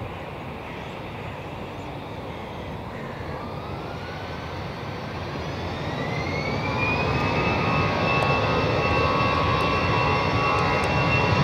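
Airbus A320's twin CFM56 turbofan engines spooling up to take-off thrust. A whine rises in pitch from about three seconds in and settles into a steady high tone about halfway through, while the engine noise grows steadily louder.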